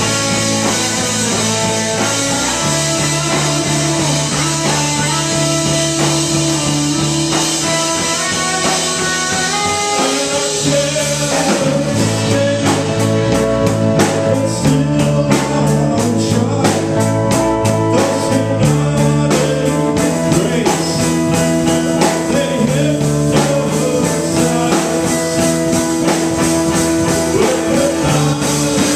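Live rock band playing: electric guitars and bass over a drum kit. About twelve seconds in the steady cymbal wash thins out and a fast, even beat of drum hits takes over.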